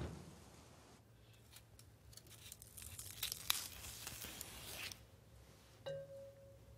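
Kitchen knife stripping the stringy fibres from a celery stalk: a faint rasping tear as the strings are pulled off, in several short strokes. A soft knock comes near the end.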